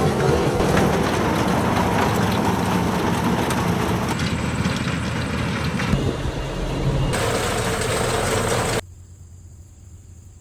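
Tractor engine running steadily with a New Holland haybine mower-conditioner driven off it, mowing hay. The loud machine sound cuts off abruptly near the end, leaving a faint hiss with a thin high tone.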